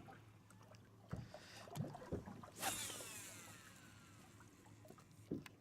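KastKing Speed Demon baitcasting reel cast: a quick swish, then the spool's thin whine falling in pitch over about a second and a half as it spins down, with a few soft knocks before it.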